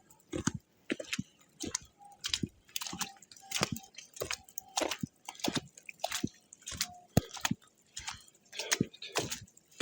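Footsteps of a hiker walking on a wet, snowy trail, a steady walking pace of about three steps every two seconds.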